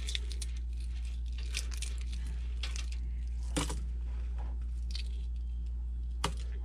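Hard-boiled egg being peeled by hand: scattered light clicks and crackles as pieces of shell come off, over a steady low hum.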